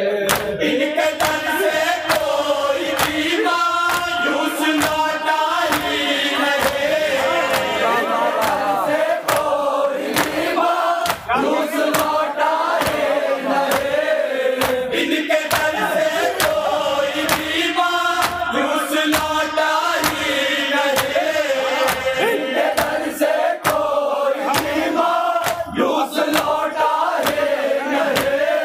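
A group of men chanting a Shia salam (noha) in unison, with a steady rhythm of sharp hand-on-chest beats (matam) running through the singing.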